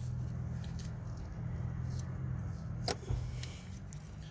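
A steady low hum with a single sharp metallic click about three seconds in and a softer knock just after, from hand tools working at the engine's ignition coils.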